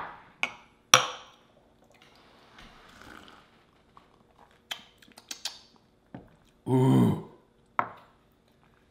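Glass jars clinking together in a toast, then quiet drinking sounds and the glass jars being set down with small knocks on a wooden cutting board. Near the end there is a short vocal 'ahh' after a drink.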